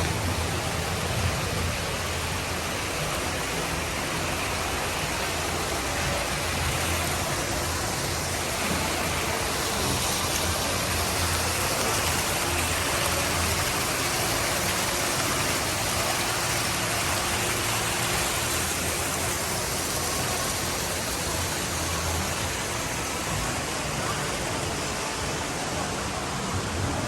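Indoor artificial waterfall: water falling and splashing steadily, with a low rumble underneath.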